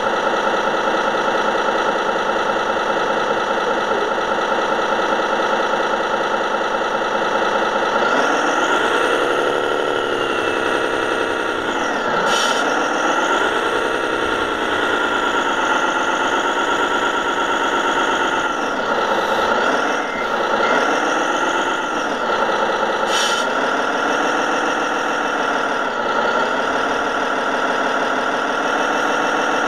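Engine sound of a radio-controlled model truck, heard from on board: a steady idle for about eight seconds, then the pitch rises and falls again and again as the truck drives off and changes speed.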